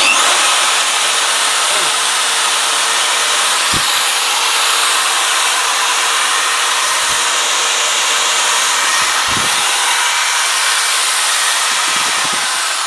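Tekhmann TLD-13/1260 low-speed corded electric drill switched on and running flat out: a loud, steady whooshing whir that is mostly the rush of its motor's cooling-fan air rather than gearbox noise. Near the end the pitch starts to fall as the drill slows.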